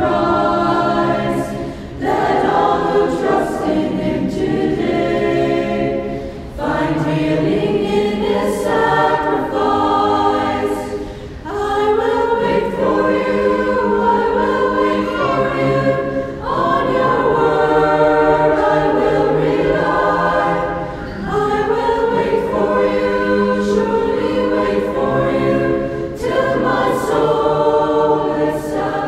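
Choir singing in phrases of about four to five seconds, with a short break between each.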